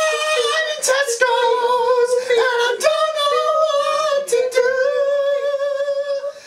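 A high voice singing unaccompanied, holding long notes and stepping from one pitch to the next.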